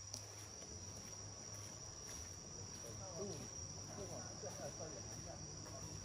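Forest insects calling in one steady, high-pitched drone, with faint voices talking about halfway through.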